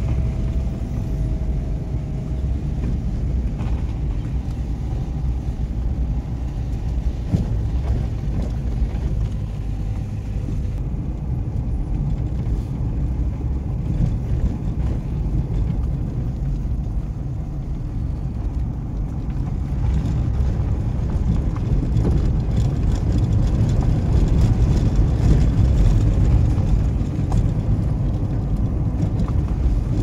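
Car driving slowly along a gravel road, heard from inside the cabin: a steady low rumble of tyres and engine with scattered small knocks from the road surface, growing a little louder past the middle.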